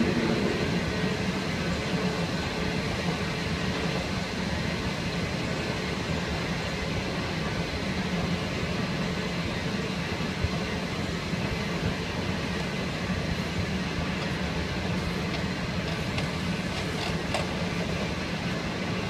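Long, steep escalator in a Washington DC Metro station running: a steady mechanical hum with a fast, low rattle.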